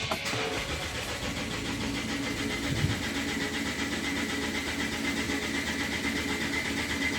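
Lancia Voyager's 2.8 CRD diesel engine starting up right at the beginning, then running steadily at idle.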